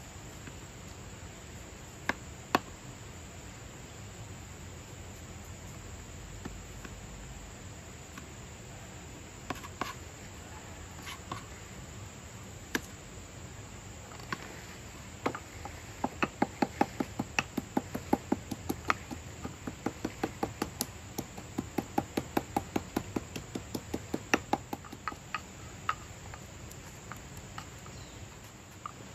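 Knife chopping on a plastic cutting board: a few scattered taps, then a fast, even run of chops at about three or four a second for some nine seconds in the second half. A steady high insect drone runs underneath.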